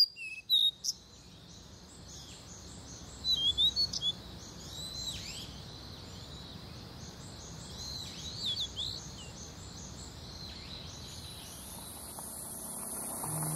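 Wild birds chirping and calling in a forest. There are sharp chirps near the start and a cluster about three to four seconds in, over an evenly repeating high call and a low steady rumble of outdoor ambience.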